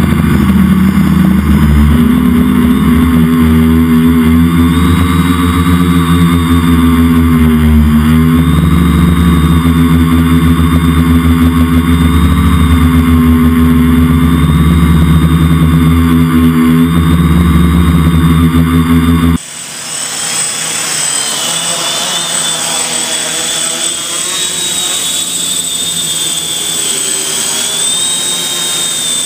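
Multicopter's electric motors and propellers running in flight, a loud, steady drone hum whose pitch wavers with throttle. About two-thirds through, it cuts abruptly to a quieter, more distant buzz with a wavering high whine.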